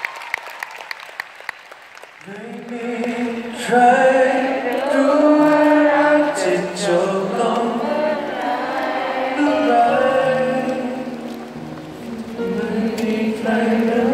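A few scattered handclaps as the applause dies down, then about two seconds in a slow song begins: long held, choir-like sung notes over a sustained backing, in a large reverberant concert arena.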